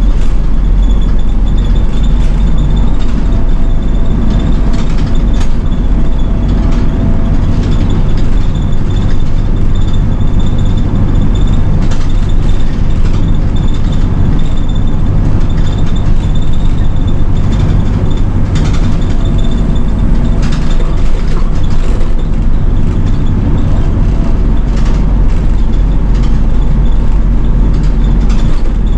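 City route bus engine running steadily under way, heard from inside the bus, with a deep road rumble and scattered short clicks and rattles.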